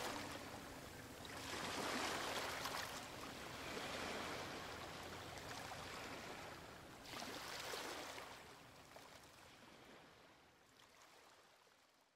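Waves washing ashore, a few slow swells of surf noise that fade away gradually near the end.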